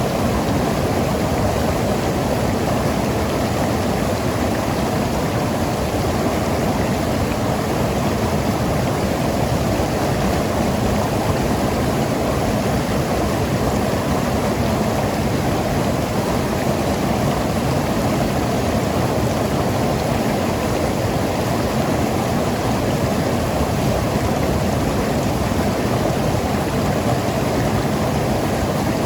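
Mountain river rushing and gurgling over rocks: a steady, full water noise, strongest in the low and middle range.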